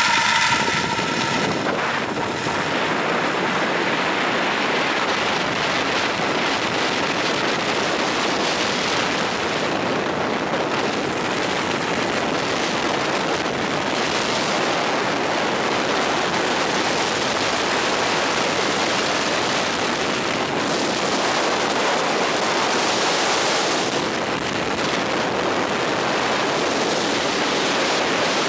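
Steady rushing hiss of wind and a zipline trolley running along the steel cable during a fast ride.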